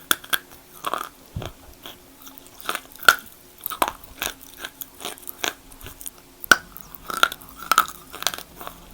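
Close-up chewing and crunching of wet Kiti chalk: irregular crisp bites and crunches, the loudest about three seconds in and again about six and a half seconds in.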